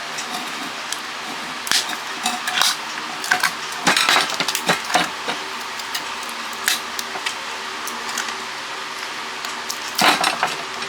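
Irregular metallic clinks and clatter of tools and aluminium parts being handled while a satellite-dish LNB is taken apart for scrap, over a steady background hum.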